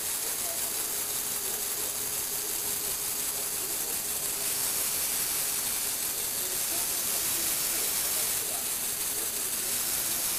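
Lego Technic gear mechanism running steadily as it turns and tilts a platform of model cars: an even, hissy whir with a faint steady hum.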